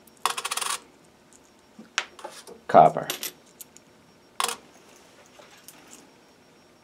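Pennies clinking: a short rattle of coins jingling together about a quarter of a second in, then a few sharp clicks as pennies are lifted off and set down on the pan of a small digital coin scale.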